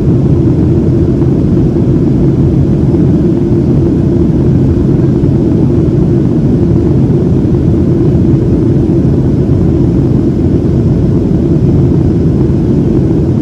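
Steady rumble and rush of a Boeing 737-700's CFM56-7B engines and airflow, heard inside the passenger cabin in flight.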